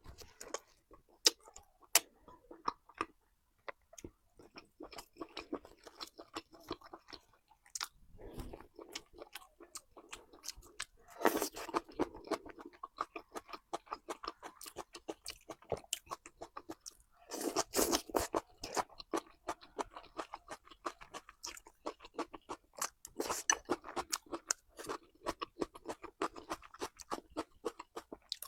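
Close-miked eating sounds: chewing and biting with many sharp crunchy clicks, louder in a couple of stretches.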